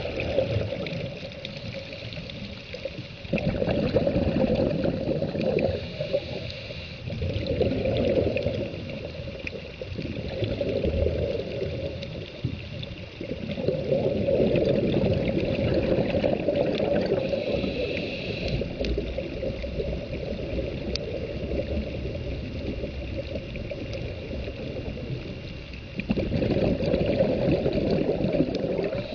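Underwater recording of a scuba diver's exhaled regulator bubbles, coming in bursts a few seconds long with quieter gaps between them as the diver breathes.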